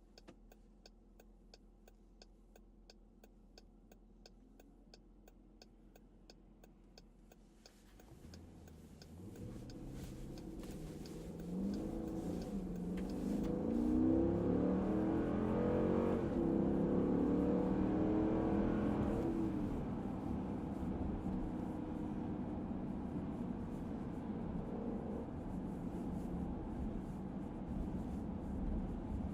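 2018 Dodge Durango R/T's 5.7-litre HEMI V8 idling quietly, heard from the cabin, with a turn signal clicking about twice a second. About eight seconds in the truck pulls away, the engine note rising in steps as the transmission shifts up, then settles into a steady cruise.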